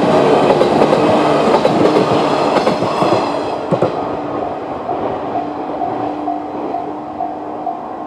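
A 115-series electric train rumbles past over the level crossing, its wheels clacking over the rail joints, and the noise dies away about three and a half seconds in. The crossing's electronic warning bell, of the JR East (Tōhoku) type, keeps ringing steadily throughout.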